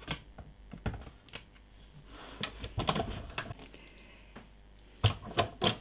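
Light clicks and taps of acrylic cutting plates and cardstock being handled at a hand-cranked Big Shot die-cutting machine, with a denser stretch of clicking and scraping around the middle.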